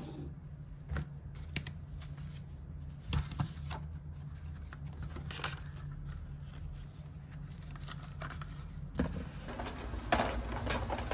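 Small desk-work handling sounds: scattered light taps, clicks and rustles over a low steady hum.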